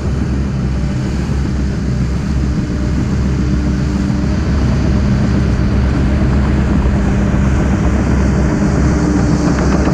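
Diesel engine of a new Cat D3 crawler dozer running steadily under load as it pushes a pile of dirt, growing slightly louder as the machine approaches.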